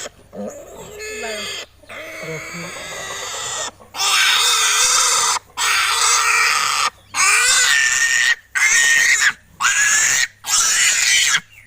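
Pigs grunting, then from about four seconds in a pig squealing loudly in a run of long cries with short breaks between them.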